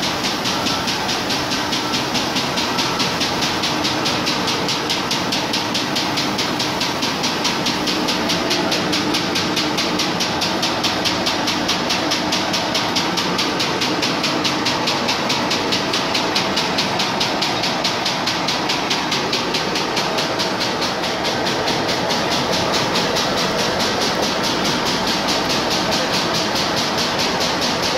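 CHM paper sheeter running steadily: continuous machine noise with a fast, even clatter and a hiss from the rollers and cutting section.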